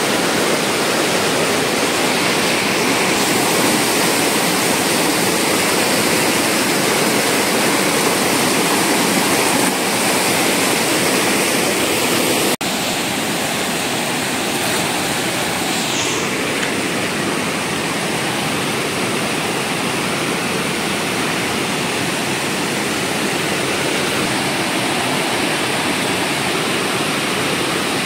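Rushing water of a rocky mountain stream's whitewater rapids, loud and steady. About halfway through there is a sudden break, after which the rush is slightly quieter.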